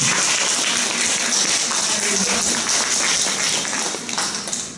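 Audience applauding: many hands clapping in a dense, steady patter that thins out near the end.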